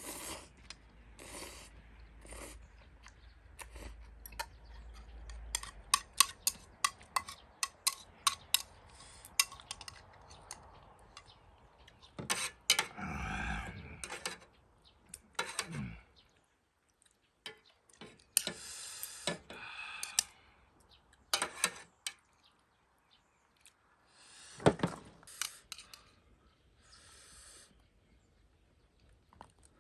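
Eating ramen: utensils clicking and clinking against the dishware, in quick runs of sharp clicks. Several longer, noisier spells come in between.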